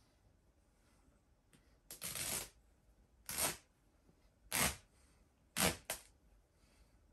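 Hands tearing apart a large plush stuffed dog toy, pulling at its fabric and stuffing: five short rustling, tearing noises, the last two close together.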